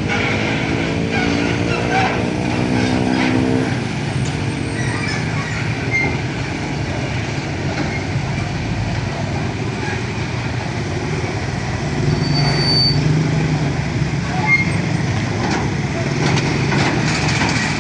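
Heavy vehicle engine running amid road traffic noise, its note rising slightly over the first few seconds before it fades into a steady rumble.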